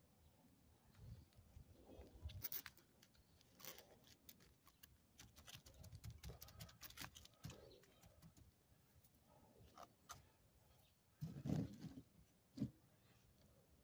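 Faint rustling and light clicks as hands press potting soil into a clear plastic seed tray, with two louder knocks of handling near the end.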